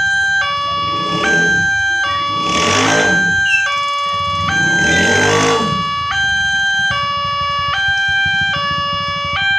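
Two-tone electronic siren of a Nataya Putra level-crossing gate, sounding through a horn loudspeaker and switching between a high and a low pitch less than once a second: the crossing's warning that a train is approaching. Two vehicles pass close by, around three and five seconds in.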